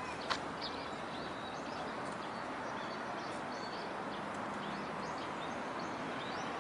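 Outdoor ambience: a steady background hiss with faint, scattered bird chirps.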